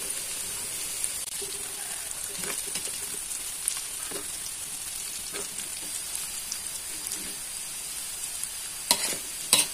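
Beef meatballs, tempeh, shallots and garlic frying in oil in a metal wok, a steady sizzle, while a metal ladle scrapes and clinks against the wok as the excess oil is scooped out. Two sharper clinks come near the end.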